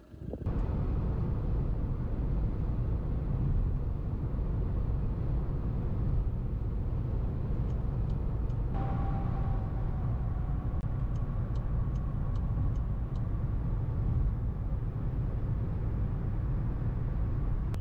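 Car interior noise at motorway speed: steady low engine and road rumble heard from inside the cabin. A steady higher hum joins about halfway through.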